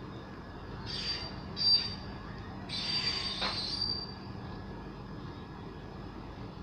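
Indian Railways LHB passenger coaches rolling slowly out of the station, over a steady low rumble. Their wheels give out high-pitched squeals: a short one about a second in, a sharp one soon after, and a longer one around three to four seconds in.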